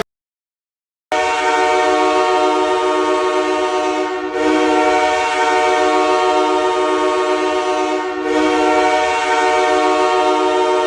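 NHL arena goal horn, an air horn with several tones sounding together, held in one long, steady blast with two brief dips; it starts after about a second of silence.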